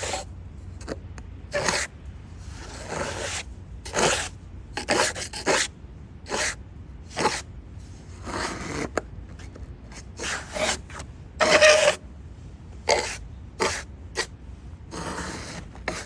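3D-printed plastic snowplow blades on Crocks shoving and scraping through snow in short, irregular strokes, roughly one a second.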